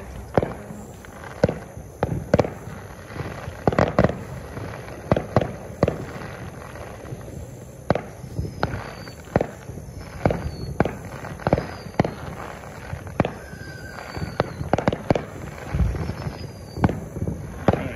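Fireworks going off one after another in an irregular string of sharp bangs, with a few faint falling whistles in the middle.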